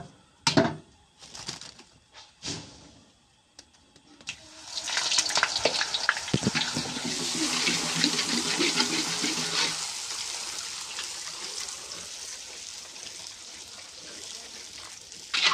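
Puris (panipuri shells) frying in hot oil in an iron wok: a loud, even sizzling hiss that starts about four seconds in and slowly eases off. Before it come a few sharp knocks and clatters of the slotted ladle and puris.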